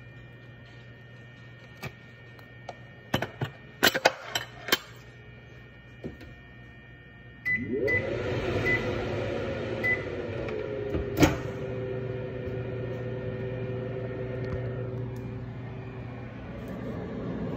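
A few light clicks and knocks, then about seven seconds in several short beeps as a stove vent fan is switched on. The fan then runs steadily with a rushing noise and a hum that slides down in pitch and settles.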